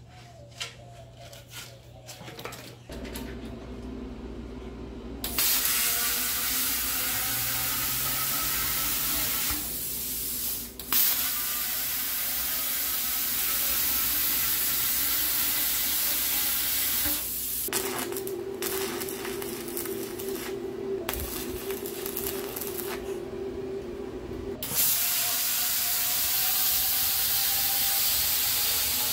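Plasma cutter cutting through the steel wall of an old air-compressor tank: a loud, steady hiss of the arc and air jet. It stops briefly about ten seconds in and again for several seconds past the middle, then starts again. A lower machine hum runs underneath from a few seconds in.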